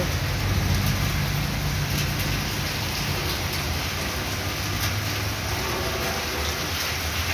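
Heavy rain falling steadily on a sheet-metal roof and the wet street, with a steady low hum underneath.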